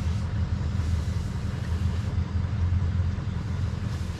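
Swimming pool filter pump running after being switched back on, a steady low hum.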